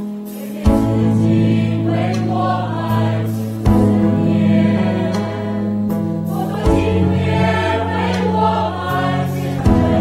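Music: a choir singing over sustained accompaniment, with the chord and a strong low bass note changing about every three seconds.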